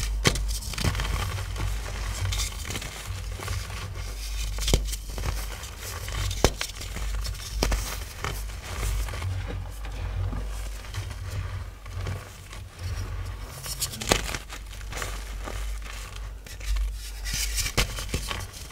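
Powdery chalk blocks being crushed and crumbled, a dense run of irregular crackles and crunches with sharp snaps here and there.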